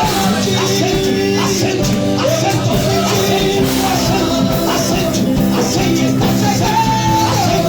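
Live church worship music: a band playing steadily with a voice singing a melody over it.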